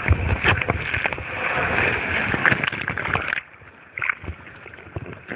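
Water rushing and a rider's body sliding and knocking through an Aqualoop water slide tube, with many sharp bumps. About three and a half seconds in, the rushing suddenly drops away to quieter splashing and knocks.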